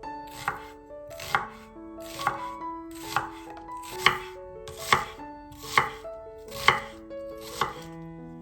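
Kitchen knife chopping food on a cutting board: nine even, sharp strokes, a little under one a second, over soft background music with held notes.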